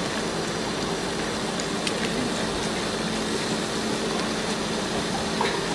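Steady hum of running machinery, an engine-like drone holding one pitch, with a few faint clicks.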